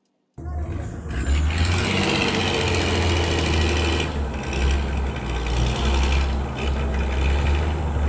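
Heavy vehicle engine running with a deep rumble. It starts abruptly about half a second in and cuts off suddenly at the end.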